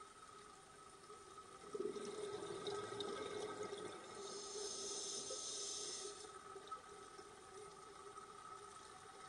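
Scuba breathing heard underwater: exhaled bubbles burble for about two seconds, then a regulator hisses with an inhaled breath. A faint steady hum runs underneath.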